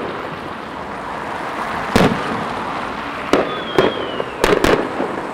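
Fireworks salute bursting overhead: a sharp bang about two seconds in, then four more close together in the last two seconds, over a steady background rush. A faint whistle, falling slightly in pitch, runs just before the last bangs.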